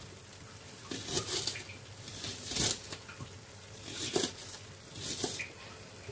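Knife slicing through an onion: short crunchy cuts, often two close together, about once a second.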